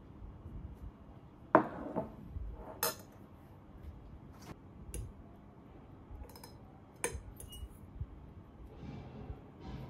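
A ceramic plate set down on a wooden table with a knock about a second and a half in, followed by scattered sharp clinks of a metal fork against the plate and of glassware being put down.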